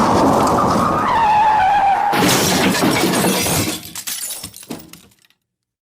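Car crash sound effect: a screech that slides down in pitch, then about two seconds in a loud crash with shattering glass. Scattered clatters of falling debris follow and die away by about five seconds.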